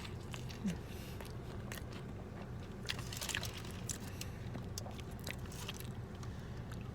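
A person chewing a mouthful of steak grilled cheese burrito close to the microphone, with small wet clicks and crunches, over a steady low hum.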